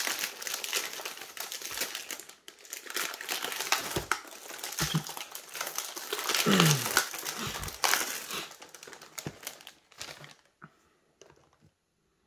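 Crinkling of a cookie packet's wrapper being handled, a dense run of crackles that stops about ten seconds in.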